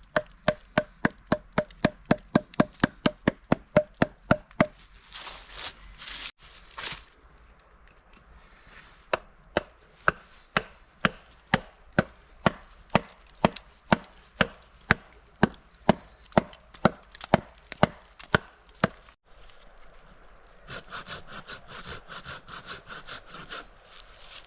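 A tool striking wood in quick, even strokes, about four a second at first, then a pause with some scraping, then a longer run of slightly slower strikes. A short rasping scrape follows near the end.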